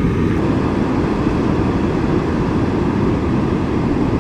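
Steady low rush of surf washing up the beach, with wind buffeting the microphone.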